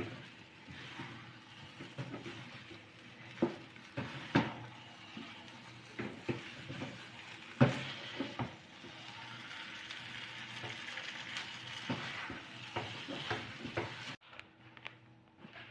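A spatula stirring and scraping thick, sticky biko (glutinous rice cooking in coconut) in a wok, with irregular knocks of the spatula against the pan over a steady sizzle. Near the end the sizzle cuts off suddenly.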